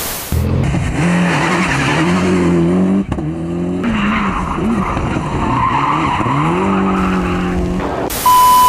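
Toyota Celica GT-Four rally car's turbocharged four-cylinder engine revving, its pitch repeatedly climbing and dropping, with a sudden break about three seconds in. Near the end, a loud steady beep tone cuts in.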